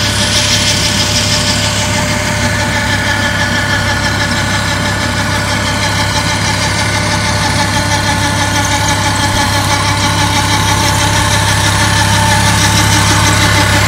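Farm tractor's diesel engine running steadily at idle, close up, growing a little louder near the end.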